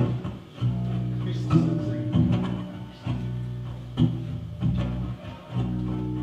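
Live folk band playing an instrumental introduction: strummed acoustic guitars over bass guitar, sustained chords with a few sharp accents.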